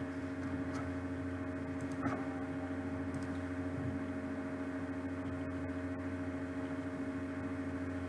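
Steady electrical or machine hum with several fixed tones, the background room tone of a computer screen recording, with one faint click about two seconds in.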